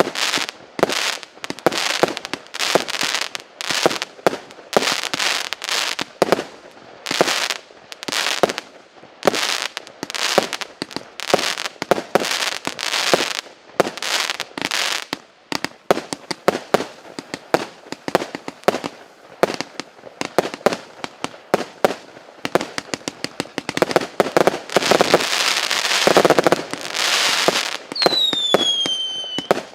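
258-shot, 0.8-inch firework cake (Р7400 «Держитесь!») firing in rapid succession: a fast, unbroken run of shots and bursts several per second. Late on it thickens into a continuous crackling stretch, then falling whistles sound near the end.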